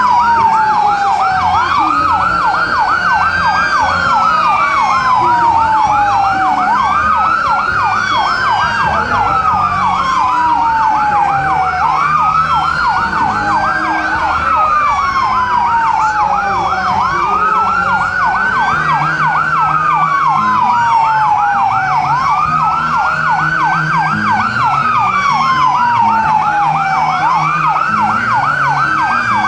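Fire truck electronic sirens sounding together. One wails slowly up and down, about once every four to five seconds, while another yelps rapidly at about four sweeps a second.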